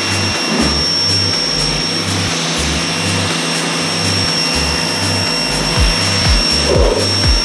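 Craftsman 2100 psi electric pressure washer spraying water onto a car body: a steady hiss of spray with a thin high whine. Under it runs background music with a deep bass line that steps from note to note and booming kick drums, which thicken near the end.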